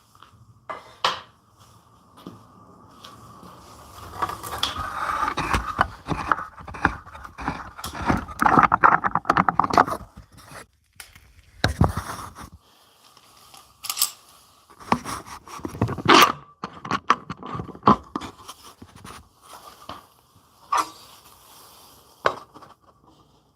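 Wood and tools being handled and scraped on a workbench, in irregular stretches of scraping broken by sharp knocks and clicks.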